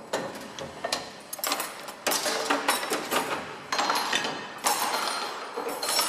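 Crockery and trays clattering and clinking as a robot arm sorts them from a conveyor into a dishwasher rack on a Hobart robotic dishwashing line. The knocks come irregularly over a background of machine noise and grow busier from about two seconds in.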